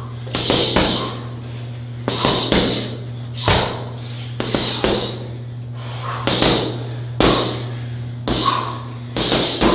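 Strikes landing on a heavy bag in quick combinations of two or three thuds, with short pauses between them. A steady low hum runs underneath.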